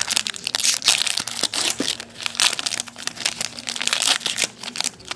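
Shiny plastic trading-card pack wrapper crinkling and tearing as it is pulled open by hand, right at the microphone, with a dense run of rapid crackles.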